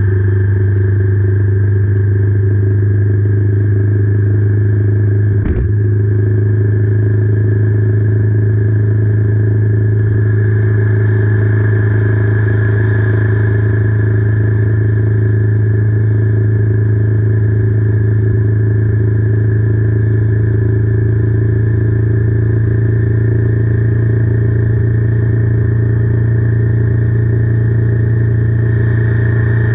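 Royal Enfield Meteor 350's single-cylinder engine running at a steady cruising speed, a loud, even low drone. A single knock sounds about five and a half seconds in.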